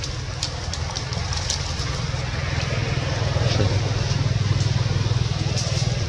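An engine running with a steady low hum, getting louder over the second half, with a few faint high ticks over it.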